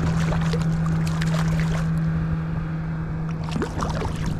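Water sloshing and splashing around a fishing kayak, with wind noise and a steady low hum that stops about three and a half seconds in.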